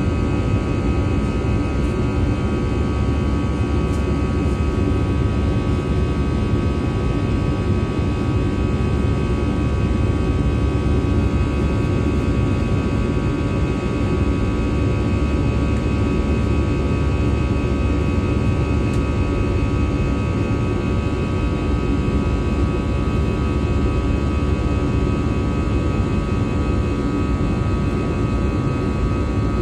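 Airbus A320 jet engines running steadily: a constant low rumble with a steady whine of several tones above it.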